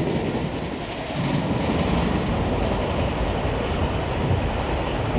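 Freight train of enclosed autorack cars rolling past, a steady rumble of wheels on rail with faint clicks now and then from the rail joints.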